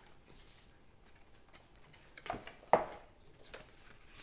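Cardboard packaging being handled by hand: mostly quiet, with two sharp knocks a little past the middle, the second the loudest, and a few faint clicks after.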